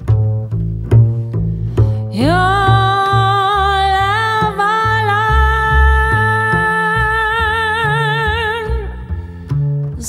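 Music: a plucked double bass playing low notes. From about two seconds in, a melody note slides up into pitch and is held with vibrato until shortly before the end.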